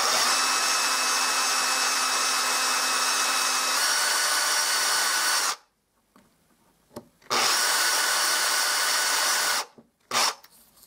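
Power drill with a fine wood bit running in bursts, boring shallow holes into wood around the stub of a broken screw to free it. It runs for about five and a half seconds, its whine stepping up slightly about four seconds in, stops, runs again for about two seconds, then gives a short burst near the end.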